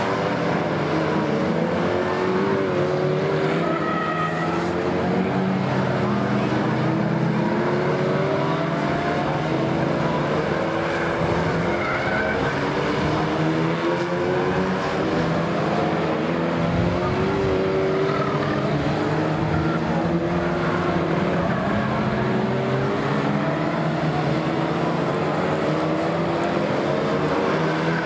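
A pack of Lightning Rods race cars lapping together, several engines revving over and over, their pitch climbing each time they accelerate, with a couple of brief tyre squeals.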